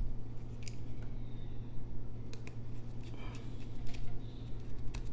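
Small metal tool clicks and scrapes as tiny screws are picked up and driven into an iPhone X's internal bracket with a precision screwdriver, a handful of sharp ticks spread irregularly, over a steady low hum.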